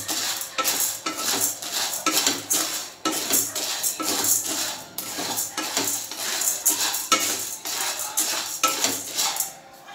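Dry chana dal (split Bengal gram) being stirred with a wooden spatula in a nonstick kadhai while it dry-roasts. The lentils rattle and scrape across the pan in quick repeated strokes, about three a second, and the stirring stops shortly before the end.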